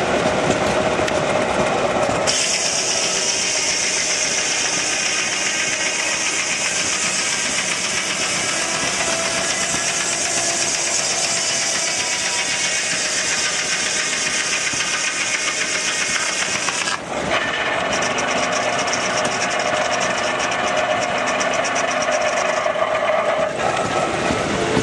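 Antique belt-driven circular sawmill. The big saw blade hums as it spins, then bites into a log about two seconds in and cuts with a loud, high-pitched hiss until about seventeen seconds in, when it runs free again. A fast rattling follows for a few seconds after the cut.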